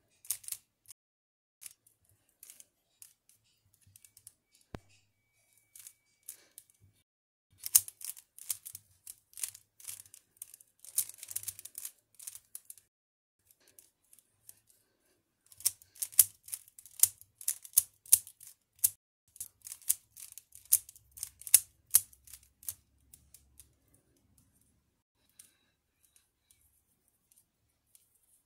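Plastic 3x3 Rubik's cube being turned by hand: fast runs of clicking layer turns, broken by pauses of a few seconds in the middle and near the end.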